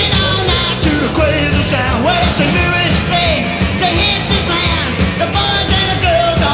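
Loud rock and roll music with a driving beat and singing.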